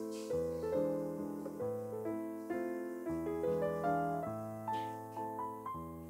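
Background piano music: a gentle melody of single notes over changing chords.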